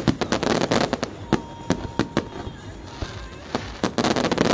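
Fireworks display going off: a string of sharp bangs from bursting shells, with two dense runs of rapid crackling, one just after the start and one near the end.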